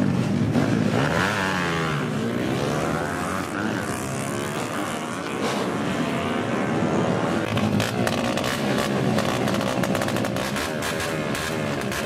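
Small underbone drag-racing motorcycles with straight aftermarket exhausts revving hard and accelerating, the engine pitch climbing and dropping again and again as they run up through the gears.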